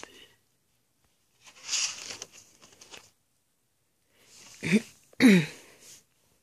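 A spiral sketchbook's cover is turned over with a brief papery rustle. A second or so later come two short vocal sounds from the person, each falling in pitch, about half a second apart.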